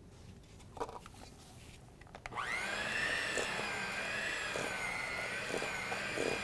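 Handheld electric mixer switched on about two seconds in, its motor whine rising quickly and then running steadily as it beats sugar into creamed butter. A couple of light knocks come before it starts.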